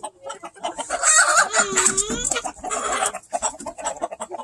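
A rooster crows once, about a second in, a long call lasting over a second, over the scattered clucking of a flock of chickens.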